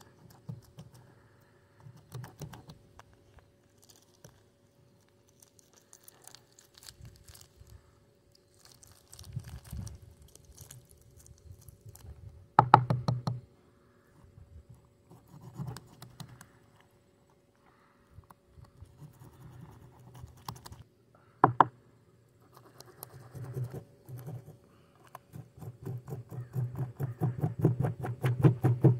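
Knife blade scraping the scales off a creek chub against a wooden tabletop: bursts of quick, rasping strokes with pauses between them. There are two louder bursts, about halfway and about two-thirds through, and the strokes come faster and denser near the end.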